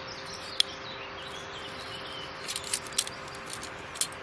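Stainless steel cutlery clicking and scraping as a fork is slid into the metal holder of a German Army cutlery set: a sharp click about half a second in, a quick run of clicks around two and a half to three seconds, and another click near the end.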